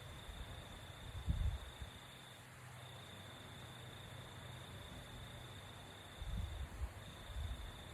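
Sleeping person's low, soft snores: a short one about a second in and two more around six to seven and a half seconds. Behind them a steady high insect trill runs on and breaks off twice.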